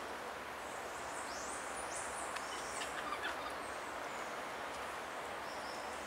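Steady outdoor background noise with a run of short, high-pitched animal chirps and sweeping whistles about two to three seconds in, and a few faint clicks among them.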